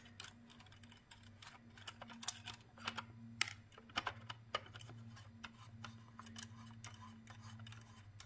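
Small irregular clicks and ticks of a nut being turned off a threaded bolt by hand on a thin aluminium enclosure panel, with fingers scraping on the metal, over a faint steady low hum.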